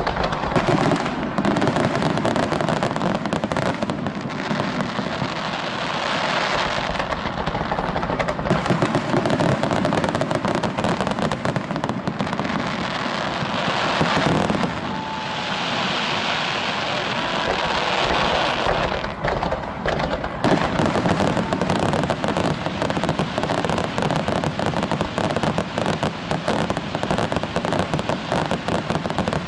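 Aerial fireworks display: a dense, continuous barrage of shell bursts and crackling, with a stretch of hissing crackle about halfway through.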